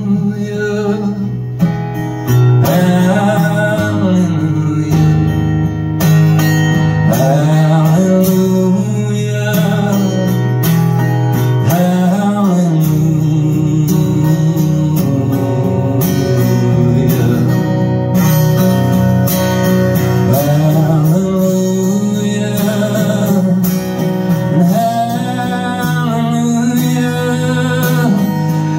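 A man singing with his own acoustic guitar accompaniment, a live solo performance through a microphone.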